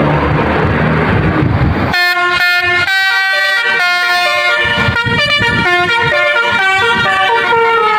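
Noisy rumble of bus engines and traffic. Then, about two seconds in, a tour bus's multi-tone "telolet" basuri air horn starts playing a melody, its notes stepping up and down.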